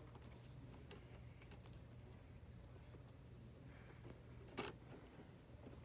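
Near silence: a low steady hum with a few faint handling clicks, and one sharper click about three quarters of the way through.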